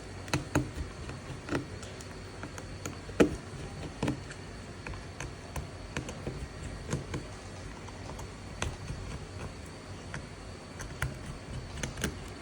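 Light, irregular clicks and taps of small repair tools on a smartphone's plastic and metal parts during disassembly, with a few louder taps, over a low steady hum.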